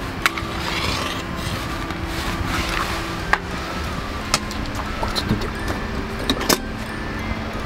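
Sharp clicks and light metal clinks as a small camp-stove burner is lit inside its metal windscreen stand, its blue flame catching near the end, over a steady low hum.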